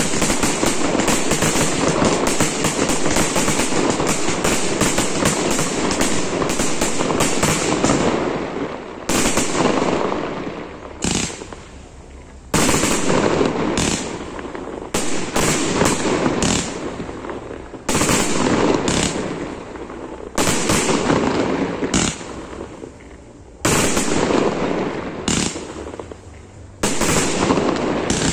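Professional aerial fireworks display: a dense, continuous barrage of shell bursts and rapid pops for about the first eight seconds, then separate volleys, each opening with a sudden loud bang and thinning out, with short lulls between.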